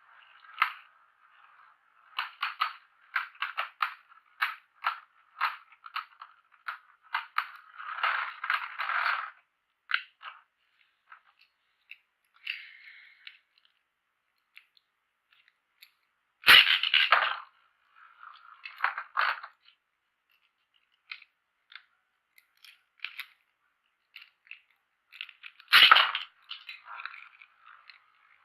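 Hard plastic parts of a Beyblade spinning top clicking and clattering in quick irregular runs, with two much louder sharp knocks, about 16 and 26 seconds in.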